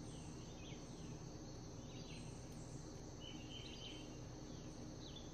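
Faint woodland birdsong: scattered short, downward-sweeping chirps and one brief trill past the middle, over a steady high drone of insects.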